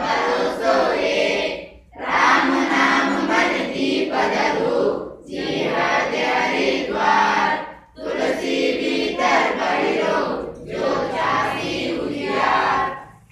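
A class of students reciting a Hindi poem aloud in unison, in a sing-song chant. The lines come in phrases of two to three seconds with short breaks between them, and the recitation stops just before the end.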